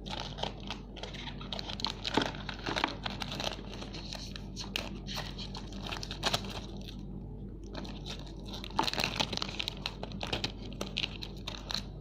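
Plastic snack packets being handled and torn open: continuous crinkling and rustling with many small crackles, easing off briefly about seven seconds in before picking up again.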